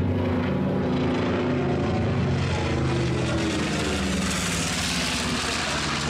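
Twin-engine piston propeller plane flying overhead, its engines giving a steady droning hum; a brighter rushing noise swells about four seconds in as it passes.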